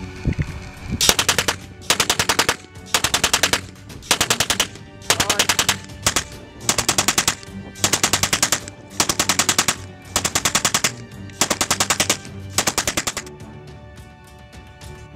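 Gas-fired prop machine gun, built as a belt-fed Browning-type gun and fed from a gas canister, firing about a dozen short bursts of rapid shots, roughly one burst a second. The firing stops near the end.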